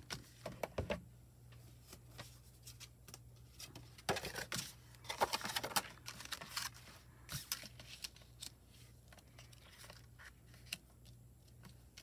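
Cardstock and paper card panels being handled on a craft table: scattered rustling, sliding and light taps, busiest about four to seven seconds in.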